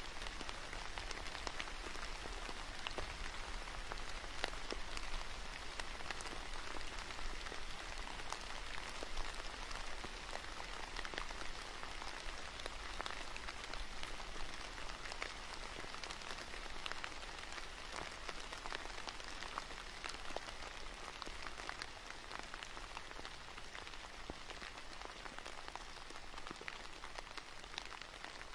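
Steady rain: a dense patter of separate drops over an even hiss, easing slightly near the end.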